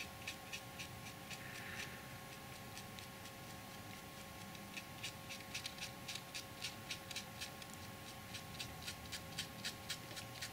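Light rapid ticks from a fine paintbrush dabbing a wash onto the keystones of a model stone arch, about four to five a second from around halfway through, over a faint steady hum.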